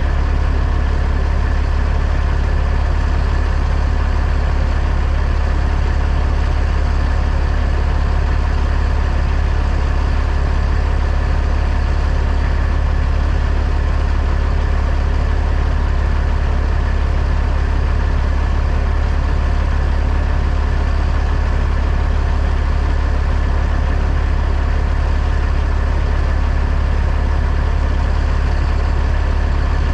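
Truck engine running with a steady, unchanging low drone.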